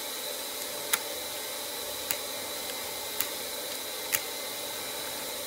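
Utility knife cutting bevels into the edges of black HDPE plastic blanks, with four sharp clicks about a second apart. Under them runs the steady hiss of a plastic welder's hot-air gun warming up.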